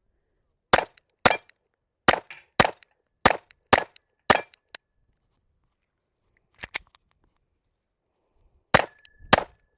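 Glock 44 .22 LR pistol firing: seven shots in quick succession, then after a pause a fainter double crack and two final shots. Thin metallic ringing trails a few of the shots, as steel target plates are hit.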